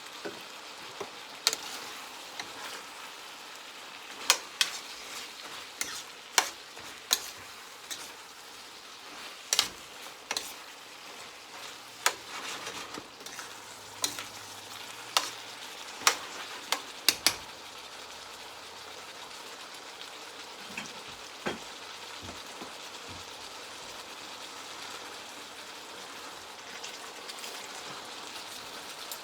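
Chicken, peppers and onions sizzling steadily in oil in a frying pan. For about the first half, a utensil stirring the food knocks sharply against the pan a dozen or so times, then only the sizzling goes on.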